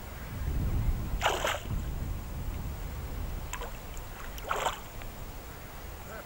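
A hooked small carp splashing at the surface twice, about a second in and again past four seconds, as it is played on a pole close to the bank.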